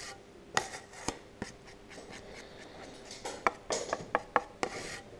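Spreader blade scraping and tapping on a mixing board as body filler, a mix of fibreglass and universal filler, is worked together: irregular soft scrapes with scattered sharp clicks.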